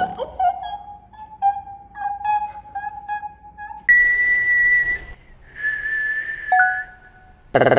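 Whistling: a quick run of short notes at about one pitch, then two longer, higher held whistles, the second dropping suddenly to a lower note near its end.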